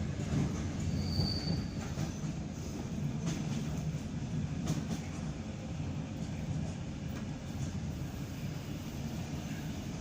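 ED9M electric train running along the track: a steady low rumble, with a brief high-pitched wheel squeal about a second in and a few faint knocks of the wheels over rail joints.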